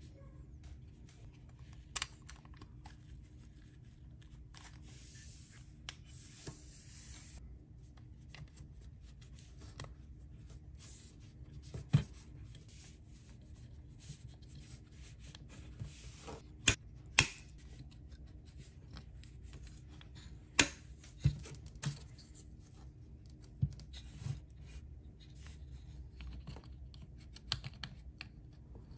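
Gloved fingers handling and pressing small plastic interior parts into a die-cast model car body: soft rubbing and rustling with scattered sharp clicks and taps, several of them louder in the middle stretch. A low steady hum sits underneath.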